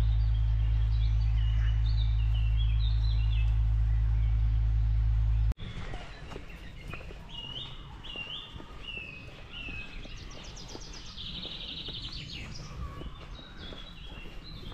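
Songbirds singing in short chirping phrases, with repeated downslurred notes and a brief buzzy trill later on. For the first five seconds or so a steady low rumble lies under the birdsong, then it stops abruptly.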